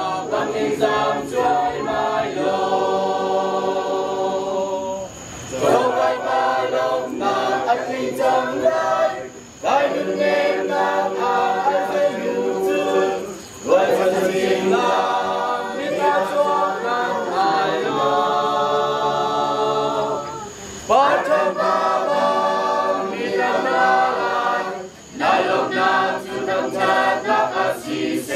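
A choir singing in long held phrases, with short breaks between phrases every few seconds.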